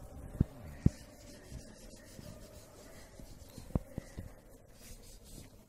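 Wax crayon rubbed over paper laid on a leaf, a steady rubbing on paper, with a few sharp taps: two in the first second and another about two-thirds through.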